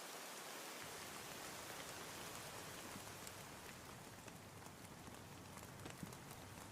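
Steady rain falling, an even hiss with scattered individual drop taps standing out from about halfway through; a low rumble fills in about a second in.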